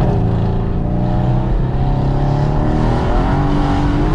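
Mercedes-AMG C63 S's twin-turbo V8 with upgraded turbos pulling hard, short of full throttle. A gear change comes right at the start, then the engine note climbs steadily as the revs rise.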